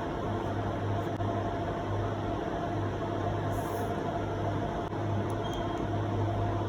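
Laser hair removal machine running with a steady electrical hum, with a short high beep near the end as it fires.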